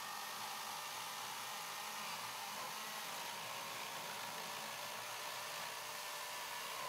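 WEN 40-volt battery chainsaw running steadily, its chain cutting through stacked 4x4 lumber with light, even feed from a small weight hung on the bar and no downward push: a steady electric whir over the hiss of the chain in the wood.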